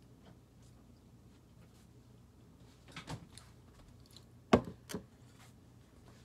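A few short knocks and thumps of objects being handled and set down at a table: two soft ones about three seconds in, then a sharp, loud knock about halfway through with a smaller one just after.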